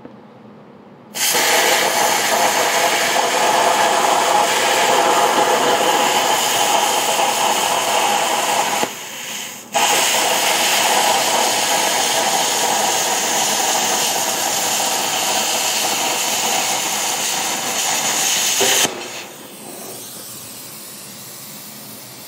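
Handheld plasma torch cutting 1/8-inch (11-gauge) steel plate: a loud, steady hiss starts about a second in, breaks off for about a second midway, starts again, and stops near the end, leaving a quieter hiss.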